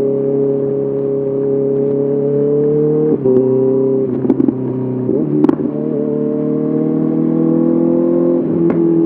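Honda CBR 650R inline-four engine through an SC Project SC1R exhaust, running under load while riding, its pitch rising slowly. The note drops at a gear change about three seconds in and again near the end, with a few sharp cracks between about four and five and a half seconds in.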